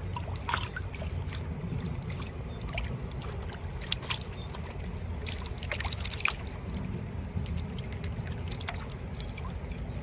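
Shallow creek water running and trickling through a landing net full of live fish, with scattered small splashes and clicks as the fish thrash in the net.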